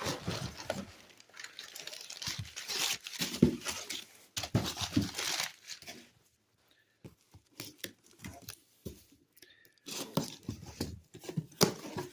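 Shipping box being unpacked by hand: cardboard and packing paper tearing and crinkling in irregular bursts, with a quieter stretch in the middle.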